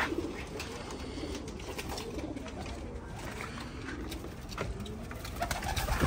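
Domestic pigeons cooing in a loft, with scattered light clicks. Near the end there is a flurry of wingbeats as a pigeon flies up.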